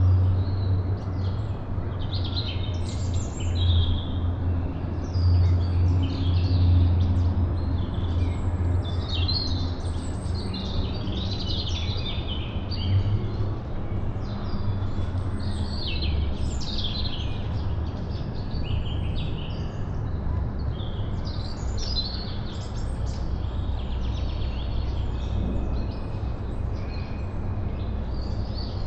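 Many birds chirping and singing at once, with short overlapping high calls throughout, over a steady low wind rumble that eases about halfway through.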